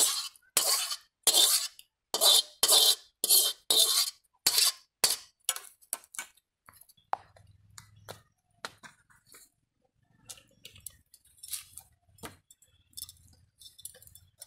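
A metal ladle scraping curry out of a metal wok in quick repeated strokes, about eight scrapes in the first five seconds. After that, only a few faint clinks and taps.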